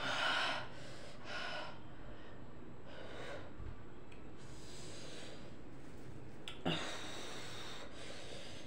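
A person breathing hard through the open mouth, with a few heavy, noisy breaths out: the strongest at the start and another about seven seconds in, with quieter breathing between. It is the panting of a mouth burning from the Jolo chip, a very hot chili tortilla chip.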